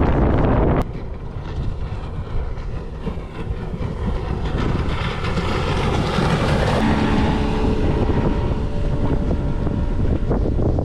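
Outboard-powered aluminium tinny running at speed, with wind buffeting the microphone and water rushing past the hull. The noise drops abruptly about a second in, swells again, and a steady engine hum comes through in the second half.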